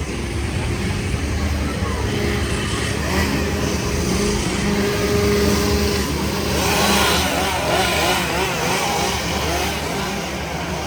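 Chainsaw engines running loudly and revving, with people's voices mixed in partway through.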